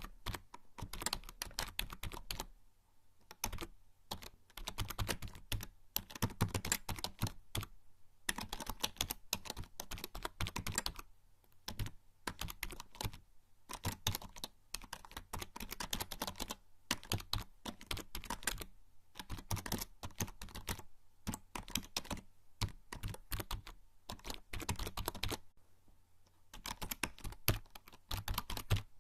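Typing on a membrane computer keyboard: quick runs of soft key clicks in bursts of a second or two, broken by short pauses.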